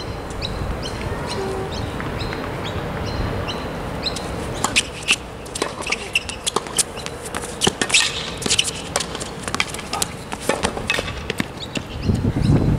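Tennis rally on an outdoor hard court: racquets striking the ball and the ball bouncing, heard as a string of sharp knocks that come thick and fast from about four seconds in, with quick footsteps on the court.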